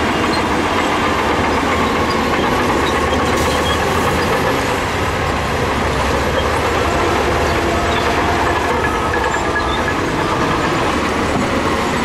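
Heavy earthmoving machinery running steadily: a dense diesel engine noise with a faint whine above it.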